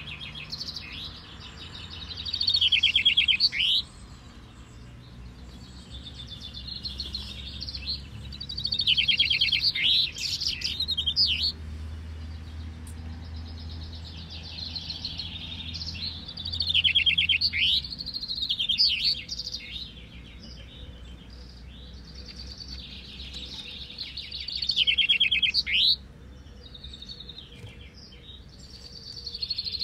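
Caged male common chaffinches singing in a finch-singing contest: full song phrases, each a rapid descending trill ending in a flourish, repeated every few seconds by several birds, sometimes overlapping.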